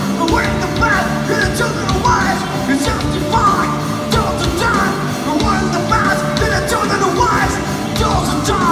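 Live rock band playing, with electric guitars, drums and a singer.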